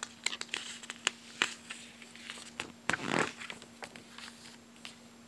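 Paper rustling and clicking as a picture book's page is handled and turned, with one longer swish of the page about three seconds in.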